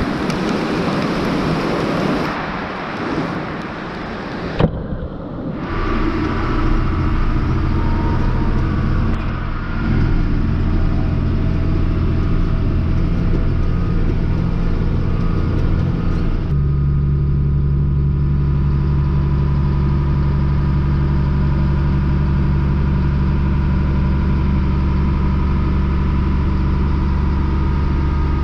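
Wind rushing over the microphone, then a single sharp thump about four and a half seconds in, after which a tractor engine runs at steady speed. About sixteen seconds in the drone steps to a lower, stronger steady pitch.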